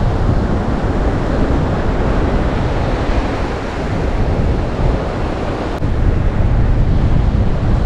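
Strong sea wind buffeting the microphone, a steady low rumble over the wash of surf on a beach.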